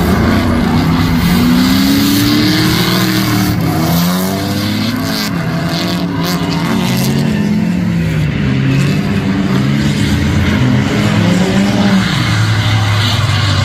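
Two drift cars sliding in tandem, their engines revving up and down in pitch as the drivers work the throttle. The engine notes overlap, over the hiss and squeal of tyres spinning and sliding on the asphalt.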